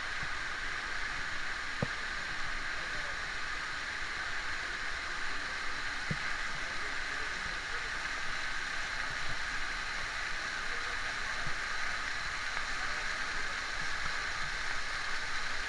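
Waterfall rushing: a steady hiss of falling water, with a couple of faint knocks.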